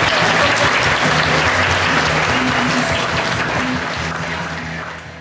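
Audience applauding over background music with low held notes, both fading out over the last second or so.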